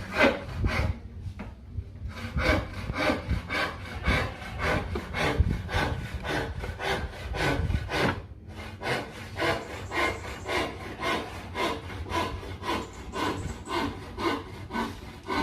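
A hand tool worked back and forth on teak wood in steady rhythmic strokes, about two to three a second, with short pauses about a second in and about eight seconds in.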